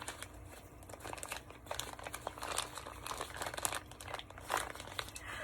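Plastic bag crinkling and rustling in irregular crackles as it is handled and opened to get at the figure inside.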